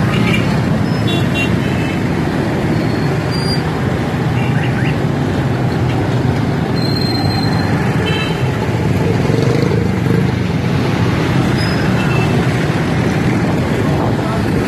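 Busy street traffic of motorcycles and auto-rickshaws: a steady rumble of engines and road noise, with a few short horn toots.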